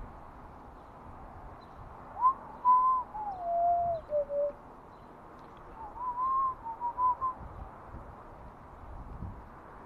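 A person whistling two short phrases of a tune. The first rises, holds, then steps down in pitch; the second rises and breaks into a few short notes.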